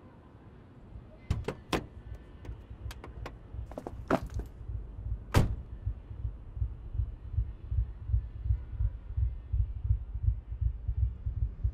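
A car's passenger door being opened and slammed shut as someone gets in, heard from inside the car: a run of clicks and knocks ending in one heavy thud. After that, a low thudding pulse repeats at an even pace.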